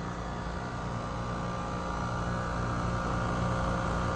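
Compressor of a 2017 Weatherking air conditioner running with a steady hum made of a few even tones, growing slightly louder. It sounds really weird because the unit is frozen over, which the owner takes for a low refrigerant charge.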